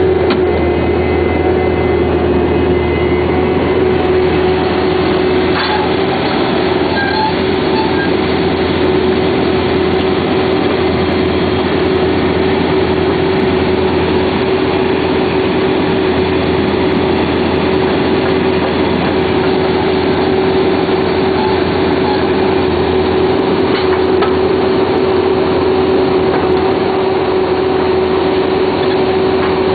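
Vermeer D24X40 Series 2 directional drill running: its diesel engine and hydraulics make a steady, loud low drone with a constant whine over it, and a few faint clicks.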